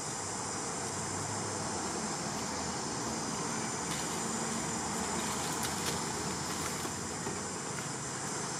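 Steady high-pitched drone of forest insects, an even hiss that does not change, with a few faint clicks near the middle.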